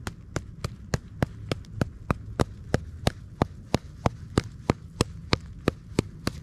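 A hammer driving a tent stake into the ground with steady, evenly spaced blows, about three a second.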